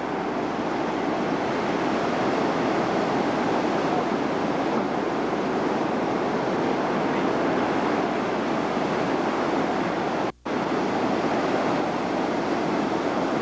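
Steady wash of ocean surf and wind on the camcorder microphone. It cuts out for a split second about ten seconds in.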